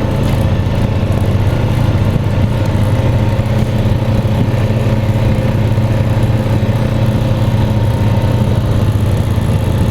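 A small vehicle's engine running steadily with a low, even hum.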